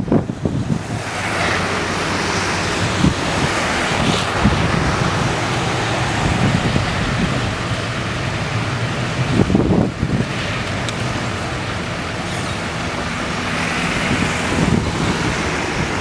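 Road traffic on a wet, slushy road: a steady rush of tyre noise that swells twice as vehicles go by, with wind buffeting the microphone about ten seconds in.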